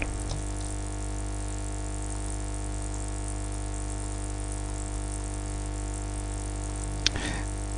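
A steady hum of many held tones, with one sharp click about seven seconds in.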